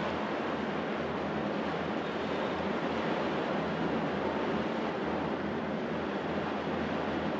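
Steady wind noise with a low, even drone of tugboat engines pushing a large ship.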